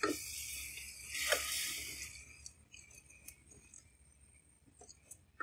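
Spiced onion-tomato masala sizzling in oil in an aluminium pot as a slotted spatula stirs and scrapes through it, with two scraping strokes in the first two seconds. The sizzle then dies down to faint scattered pops. This is the masala being fried down until the oil separates.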